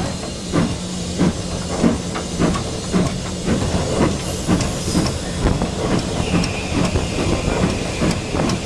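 Cab of GWR Castle-class 4-6-0 steam locomotive 5029 Nunney Castle on the move: steady steam hiss with a regular beat, a little under two knocks a second.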